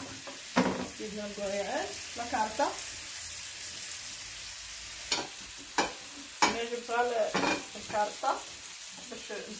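Hot oil sizzling in a frying pan, with several sharp clicks of a utensil against the pan.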